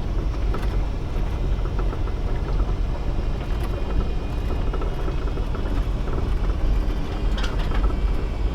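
Car driving, a loud, steady low road-and-engine rumble as heard from inside, starting and cutting off abruptly.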